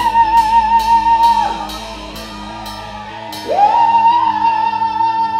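Rock singer holding two long high notes through the PA, each sliding up into pitch and wavering with vibrato, over a steady held chord from the band. Quick cymbal taps run under the first note and stop about three seconds in.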